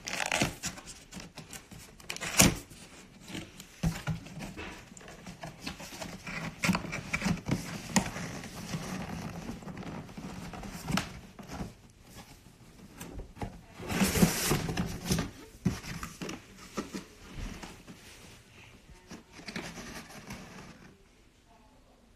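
Cardboard box being handled and opened: scattered knocks, taps and rubbing of cardboard, with a louder scraping stretch about two-thirds of the way through.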